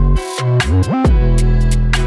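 Electronic dubstep-style background music with deep sustained bass, a rising bass swoop about halfway through, and sharp drum hits on a steady beat.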